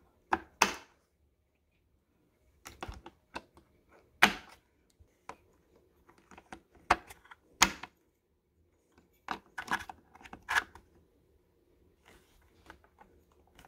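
Plastic quick-connect spray nozzles of a Sun Joe SPX3000 electric pressure washer being pressed into the plastic storage slots on its frame: a dozen or so sharp clicks and knocks, irregularly spaced.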